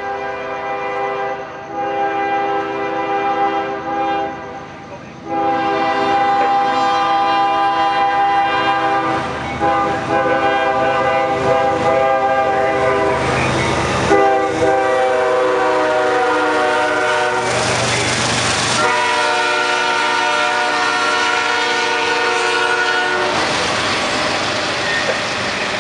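CSX freight locomotive's Nathan K5HL five-chime air horn sounding a series of long blasts as the train approaches and passes, the chord a little lower in pitch after the locomotive goes by. From about halfway, the rumble and clatter of the train rolling past build up under the horn and carry on after it stops.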